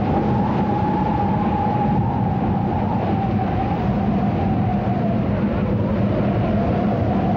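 Desert wind in a sandstorm, howling steadily: a loud rushing noise with a whistling tone that slowly wavers up and down.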